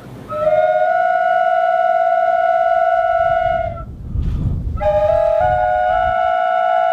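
Replica pre-Hispanic Mexican flute blown in two long held notes with a breath between them, each a clear steady tone with small steps in pitch.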